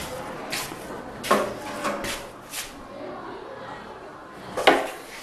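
A few sharp knocks and clacks, about four in the first three seconds, then one louder clack near the end.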